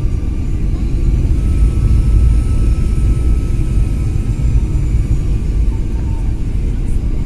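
Jet airliner cabin noise on approach, heard from a window seat beside the turbofan engine. A loud, steady low rumble of engines and airflow carries a few faint, thin whining tones above it.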